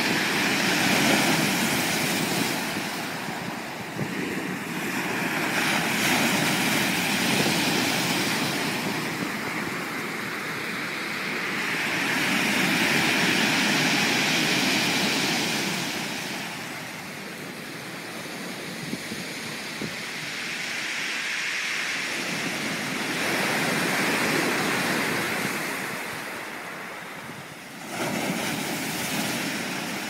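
Sea waves breaking and washing up a pebble beach, the rushing hiss swelling and fading in slow surges every several seconds. The sound jumps suddenly louder near the end.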